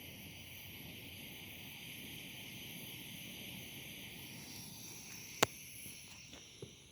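Insects chirring steadily at a high pitch, with one sharp click about five seconds in and a fainter tick a second later.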